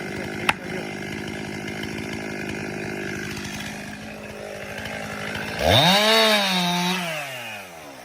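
Chainsaw engine running at a steady speed, with a single sharp knock about half a second in. About five and a half seconds in, the engine revs up sharply and then winds slowly back down.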